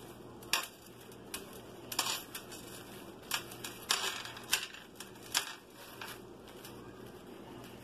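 Plastic cling wrap crinkling in irregular short bursts as hands roll sausage mixture up in it on a plastic cutting board.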